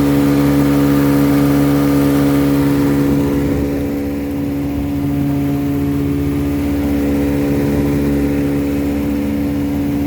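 1957 West Bend-built Elgin 7.5 hp two-cylinder outboard running steadily at cruising throttle with the boat under way. Its level dips slightly about four seconds in, then picks back up.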